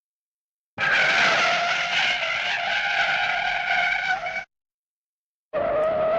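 Cartoon car-skid sound effect: a long tire skid of nearly four seconds, a steady squeal at several pitches over a hiss. It cuts off, and a second, shorter skid starts near the end.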